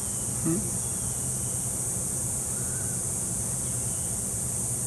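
Steady high-pitched insect chorus over a low hum. A brief low sound rises in pitch about half a second in.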